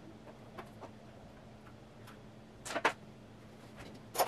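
A knife prying at the press-fit metal lid of a golden syrup tin: a few faint metallic clicks and scrapes, with a louder pair of clicks a little before three seconds in and another near the end.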